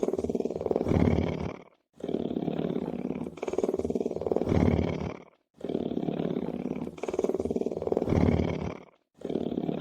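A lion purring: a low rumbling purr in stretches of about three and a half seconds, each swelling louder toward its end and broken by a brief gap before the next.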